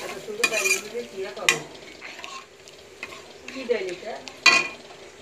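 A spatula stirring dal fry in a steel pan, with the lentils sizzling. A few sharp scrapes and clinks of the spatula against the pan come through, the loudest near the end.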